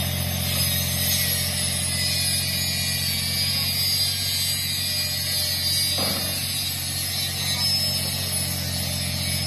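Mini excavator's diesel engine running at a steady pitch while it digs soil, with a brief falling squeal about six seconds in.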